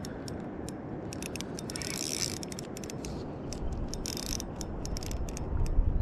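Spinning fishing reel ratcheting in irregular clicks while a hooked fish is fought on it.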